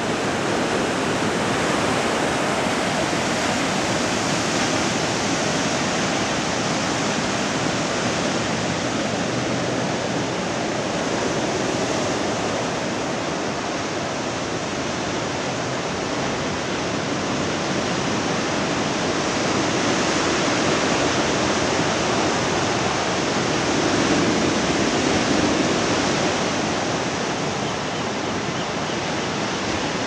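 Ocean surf breaking: a continuous wash of waves that swells a little about four-fifths of the way through.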